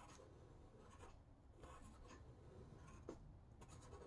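Faint scratching of a wooden pencil on paper in short, irregular strokes.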